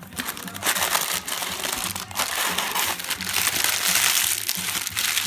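White tissue paper packing being pulled from a cardboard box and crumpled by hand: a dense paper rustle full of small crackles.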